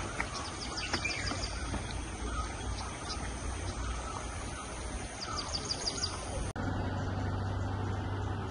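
Small birds chirping, with two quick runs of rapid high chirps over a steady outdoor background. About six and a half seconds in, this cuts suddenly to a steady low hum of a vehicle engine.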